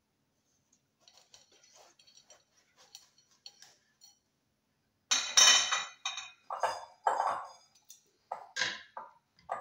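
Dishes and kitchen utensils being handled: faint clinks for the first few seconds, then a run of louder clatters and knocks from about five seconds in, the first the loudest.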